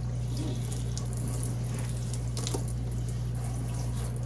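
Water running from a kitchen tap, with a few light clicks and knocks, over a steady low electrical hum.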